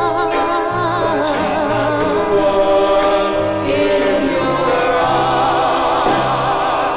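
1960s soul record playing: a female lead singer holds long notes with a wide vibrato over a bass line and band backing.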